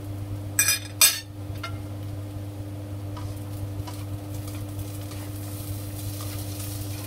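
Sliced potatoes frying in a nonstick pan, stirred and turned with a slotted plastic turner. Two sharp clatters against the pan come about a second in, then quieter scraping and stirring over a steady low hum.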